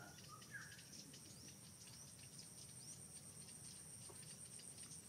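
Faint forest ambience: a steady high-pitched insect drone, with scattered short bird chirps.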